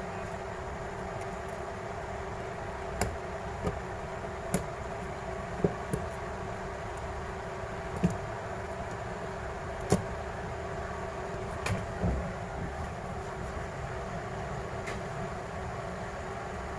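Small sharp clicks and taps of a repair tool against a smartphone's frame while the frame is cleaned after its display has been removed, about nine scattered taps over a steady background hum.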